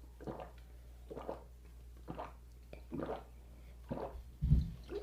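Close-miked wet, squishy chewing of crab meat with sauce, about one chew a second, with a louder low thump about four and a half seconds in.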